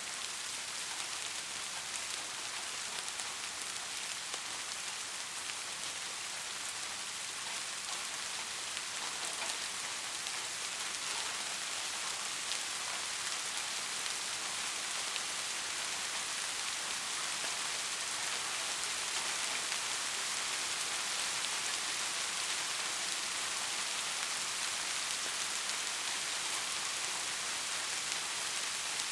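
Steady rain falling, an even dense hiss with fine drop patter throughout.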